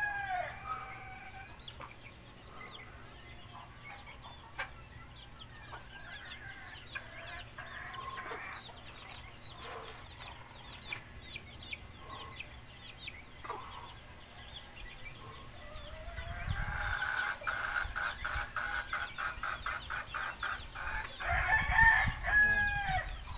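Free-ranging chickens: a rooster crows at the very start and again near the end, with a fast run of repeated clucking calls in between and faint chirping throughout. A low rumble sits under the clucking and the last crow.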